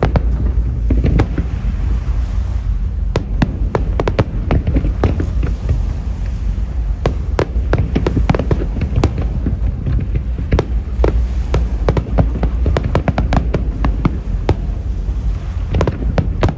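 Aerial fireworks going off: a rapid, irregular string of sharp cracks and bangs over a steady low rumble.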